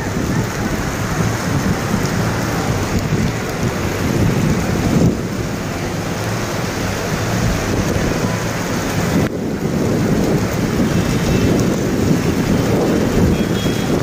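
Steady heavy rain and rushing floodwater, with wind rumbling on the microphone.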